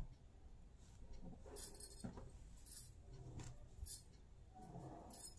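Faint, scattered rustles and soft handling noises: a folded silk saree being picked up and moved off a table, in several short strokes.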